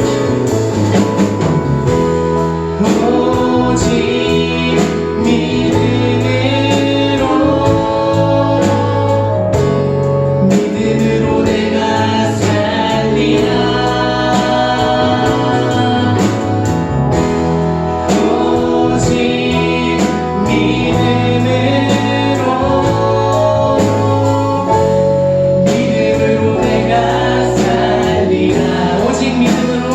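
Church worship team singing a gospel praise song with a live band: voices over held chords, bass and a steady drum beat.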